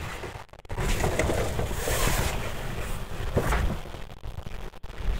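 Harsh, static-like noise with a low rumble, cutting out briefly twice, about half a second in and again near the end: a digital glitch effect.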